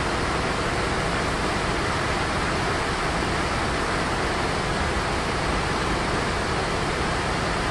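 Cumberland Falls, a large high-volume river waterfall, rushing steadily and evenly with no change in level.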